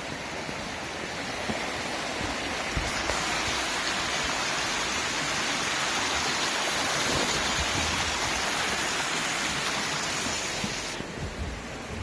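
Mountain stream rushing over rocks beneath a log footbridge, a steady wash of water noise that swells in the middle and falls away sharply near the end.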